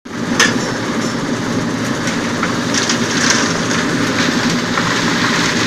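Engine-driven concrete mixer running steadily, its engine humming under the clatter and rattle of the machine, with a sharp clank just under half a second in and a few more knocks later.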